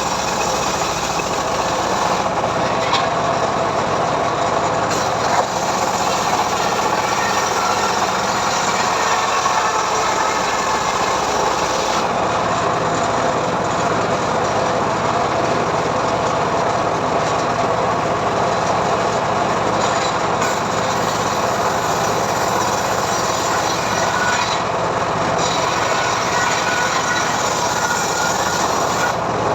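Homemade engine-driven sawmill running steadily while its blade rips through mahogany wood, a continuous engine drone mixed with the rasp of the cut.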